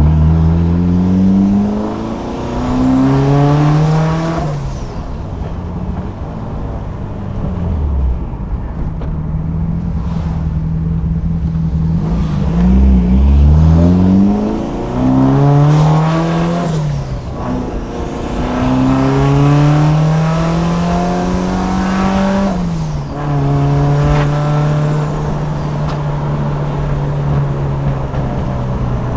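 Mitsubishi Lancer Evolution's turbocharged four-cylinder engine accelerating through the gears: the revs climb and drop at each gear change several times, with steadier cruising stretches between.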